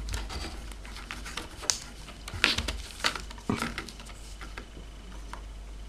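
Small irregular clicks, taps and scrapes of gloved fingers pulling at an iMac memory module and its plastic ejector tab in the RAM slot, with a few sharper clicks near the middle; the module is stuck and will not come fully out. A steady low hum runs underneath.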